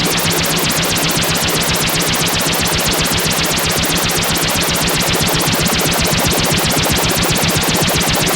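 Korg iMS-20 synthesizer patch making a synthesized helicopter rotor: a fast, even chopping pulse of noise over a steady low hum.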